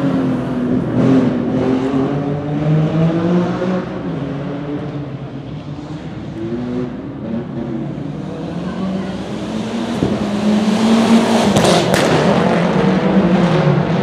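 Rally car engine revving hard through the gears, its pitch climbing and dropping again and again with each shift. It fades in the middle and grows loud again towards the end, with a couple of sharp cracks near the end.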